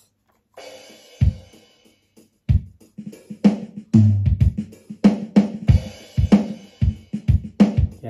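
Boss Dr. Rhythm DR-3 drum machine playing a preset drum pattern of kick, snare, hi-hat and cymbal. A cymbal comes in about half a second in with a few sparse kicks under it, and from about three and a half seconds in it settles into a steady beat.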